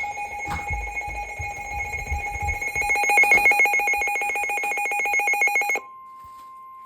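Electronic weather-alert alarm: a loud, steady two-tone beep that turns into a fast pulsing trill about three seconds in and cuts off suddenly near six seconds. A single steady, quieter tone then takes over, the NOAA Weather Radio warning alarm tone that comes before a new warning message.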